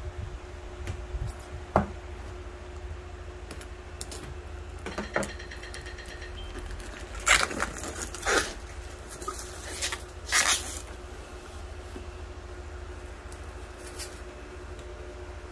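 Clear plastic shrink wrap crinkling and tearing as it is peeled off a cardboard box, in short bursts, the loudest about seven to eleven seconds in. A steady low hum runs underneath.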